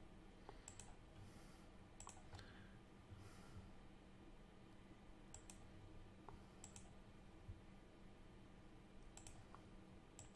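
Faint computer mouse clicks, a few at a time, several in quick pairs, over near silence.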